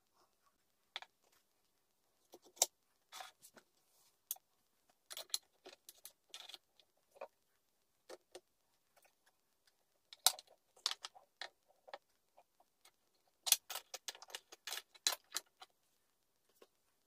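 Knife-sharpening jig and stones being worked by hand: irregular sharp clicks and short scrapes in clusters, with pauses between them.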